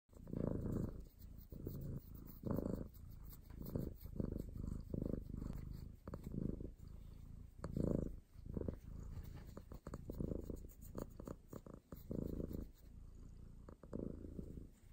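Domestic cat purring close up while its head is stroked, the purr swelling and easing with each breath about once a second.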